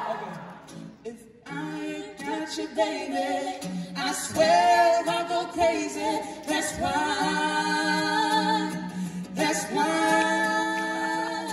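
A young woman singing into a handheld microphone with hardly any accompaniment: four phrases of long held notes and sliding vocal runs, the first starting about a second in.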